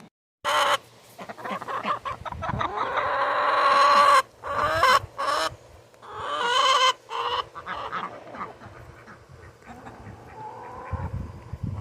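Backyard poultry calling: one long, swelling call, then several shorter calls that fade to quieter clucking toward the end.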